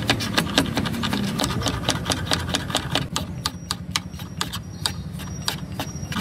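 Large kitchen knife chopping vegetables on a wooden board: a fast, even run of sharp taps, about five or six a second, slowing and growing softer about halfway through, over a steady low hum.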